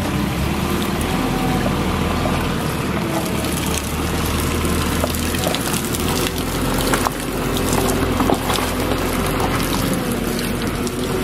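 A loader's engine running steadily while water pours and trickles out of a sugar-beet washer bucket into a skip below.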